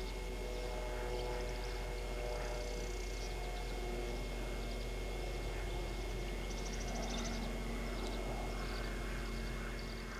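Steady outdoor background: a constant low drone with a few steady tones, and faint, rapid high-pitched chirps or trills that come and go.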